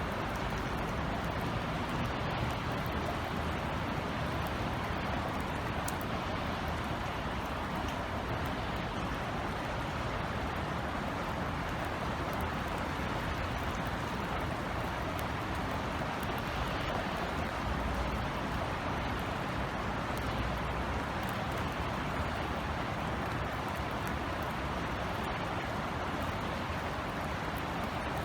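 Steady rain falling on outdoor surfaces: an even hiss with a few faint sharp drop ticks, over a low steady rumble.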